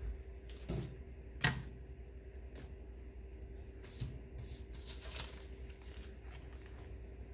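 Clear plastic packaging bags rustling and crinkling as small parts are handled on a tabletop, with a sharp tap about a second and a half in and a cluster of crackly rustles around four to five seconds in.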